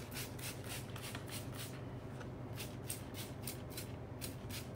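Hand trigger spray bottle pumped in quick succession, about four sprays a second with a short break about two seconds in, misting fresh flowers with a moisture-sealing finishing solution.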